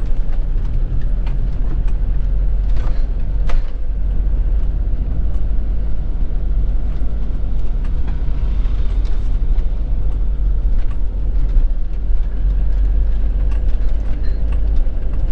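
Motorhome on the move: a steady low rumble of engine and road noise.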